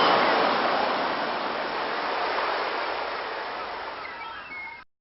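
Sea waves washing onto a beach: a surge of surf, loudest at the start and slowly ebbing away, cut off abruptly just before the end.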